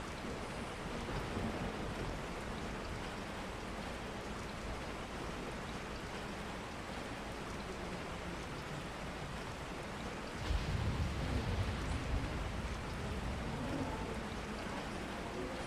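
Steady rain falling, with a low rumble rising out of it about two-thirds of the way through.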